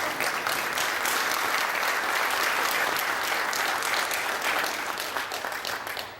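Congregation applauding: many hands clapping together, steady at first, then fading away near the end.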